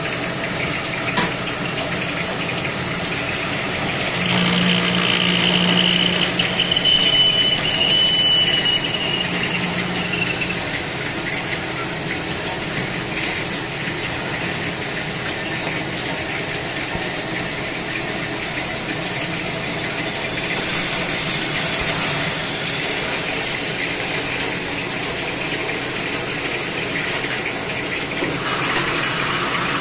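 Traub A-25 single-spindle automatic lathe running, with coolant pouring over the cut and steady machine noise throughout. From about four to ten seconds in, a high squeal sounds as the tooling cuts the pin, then fades.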